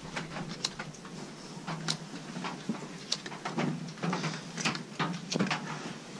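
Irregular sharp clicks, a couple a second, of a lighter being struck over the priming cup of an MSR Dragonfly liquid-fuel stove, until the priming fuel catches.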